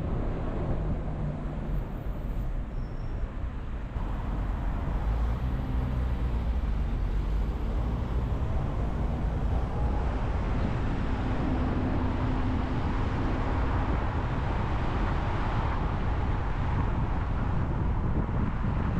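Car driving on city streets: steady road and tyre noise with a low engine hum, getting a little louder about four seconds in.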